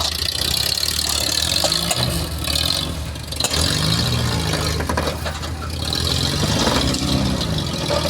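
Off-road 4x4 truck engine running at low speed, its revs rising and falling several times as it crawls, with a hiss that comes and goes.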